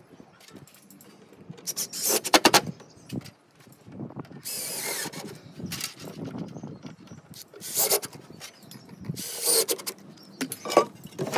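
Cordless drill-driver driving screws in several short bursts, one with rapid clicking, with handling knocks between the drives.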